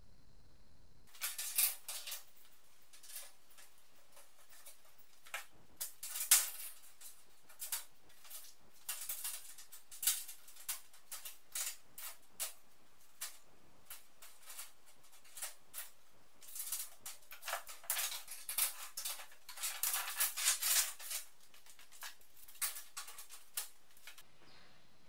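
Metal hand tools clinking and rattling as they are sorted and hung on a pegboard: a dense run of sharp, irregular clicks and clatters that starts about a second in and stops shortly before the end.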